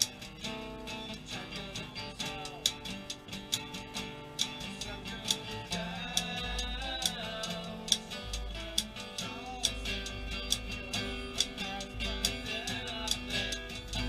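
Acoustic guitar strumming a song with a voice singing, accompanied by typewriters used as percussion: sharp clacks of the keys, several a second, fall in time with the music.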